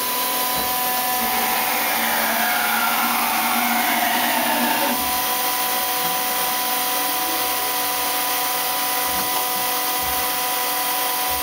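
Star SV32J CNC Swiss-type lathe running under power: a steady whir and hum of its motors, with a whine that falls in pitch between about two and five seconds in.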